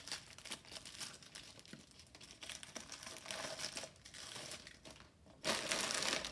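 Clear plastic bags of Lego Technic pieces crinkling as a hand moves them, with irregular crackles that get louder and denser for the last second or so.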